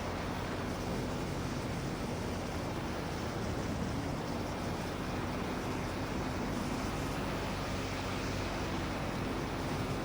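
Quicksilver MXL II ultralight's engine running steadily with a low hum, under a strong rush of wind on the microphone.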